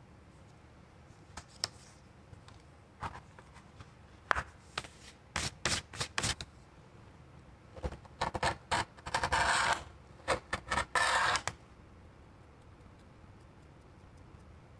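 Rotary cutter rolling through suede leather along a steel ruler in several rasping strokes, the longest about a second each, on a cutting mat. Before the strokes come scattered light taps and a run of sharp clicks from tools and the ruler being handled.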